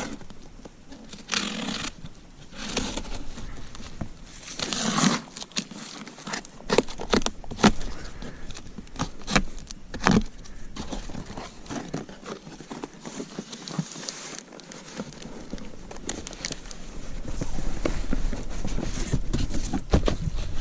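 Cardboard shipping box being opened and unpacked: tearing and crinkling of tape and packing material, with irregular knocks and scrapes as the contents are handled.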